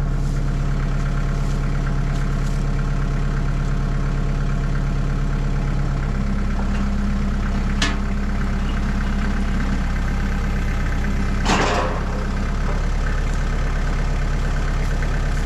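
Tractor engine running steadily while it pulls a T-post out with a fence stretcher clamped to the post. The engine note changes about six seconds in, and a single sharp clank sounds about three-quarters of the way through.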